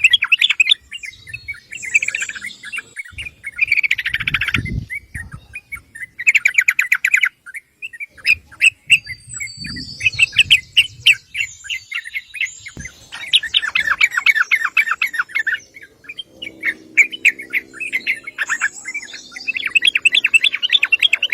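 Yellow-vented bulbul singing: quick, chattering phrases of rapid notes, each about a second long, repeated with short pauses between.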